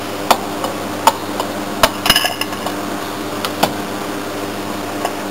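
Soft-faced mallet tapping the leg of a Technodrive Seaprop 60 saildrive to knock it free of its housing. Several sharp, unevenly spaced knocks, one about two seconds in with a brief metallic clink.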